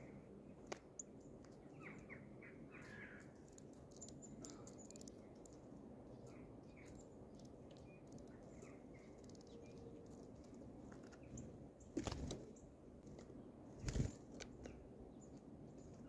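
Small birds at a grain-filled feeder tray: a few faint short chirps, scattered light ticks of pecking and hopping on the grain, and two louder thumps about twelve and fourteen seconds in.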